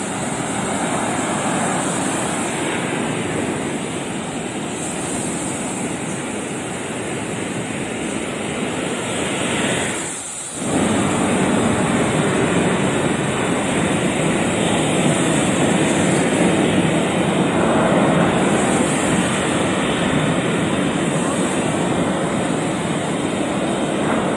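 Ocean surf breaking and washing up over sand and rocks, a steady loud rush of waves. It drops briefly about ten seconds in and then comes back a little louder.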